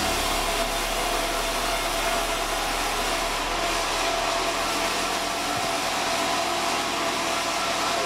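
Sawmill band saw running steadily: an even, constant hiss of the blade and motor with one steady tone above it.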